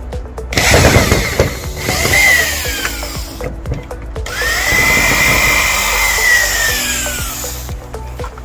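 Power drill run twice, a few seconds each, its motor whine rising and then falling in pitch, over background music.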